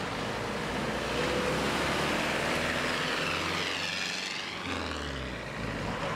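Toyota Land Cruiser 40-series engine running as the 4x4 drives past, passing closest about four seconds in.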